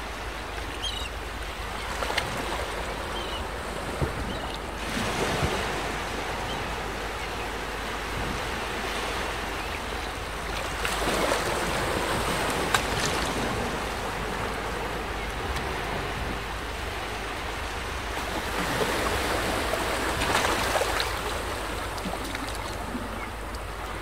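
Wind and sea surf, a steady rushing noise that swells louder every several seconds. A few short, faint bird calls come in the first few seconds.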